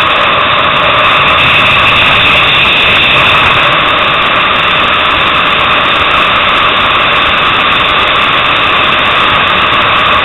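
Motorcycle at track speed, heard from a camera mounted on the bike: a loud, steady rush of wind mixed with engine noise, with no clear rises or falls in revs.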